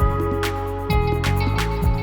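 Background music with a drum beat and held melodic notes.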